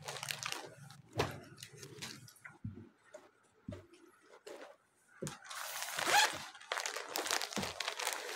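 Clear plastic packaging crinkling and cloth rustling as folded lawn suits are handled on a counter, with a few short knocks scattered through. The longest, loudest rustle comes about six seconds in.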